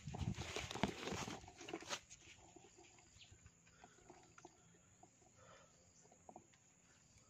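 Leafy brush rustling and crackling for about two seconds, ending abruptly, then a quiet outdoor background with scattered faint ticks.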